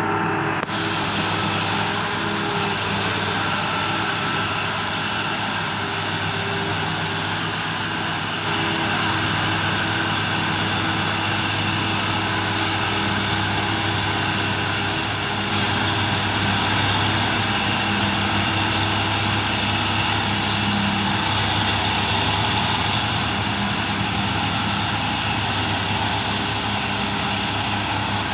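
Claas Jaguar forage harvester running steadily under load while chopping maize for silage, with a deep engine hum and a dense mechanical din; the engine note and level shift slightly a few times.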